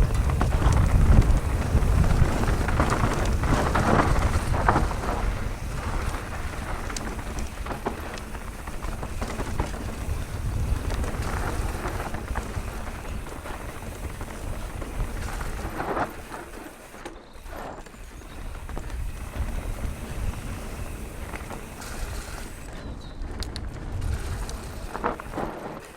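Nukeproof Mega 290c enduro mountain bike descending a rough trail: steady tyre rumble over dirt and rock, with scattered knocks and rattles from the bike, under wind buffeting the microphone.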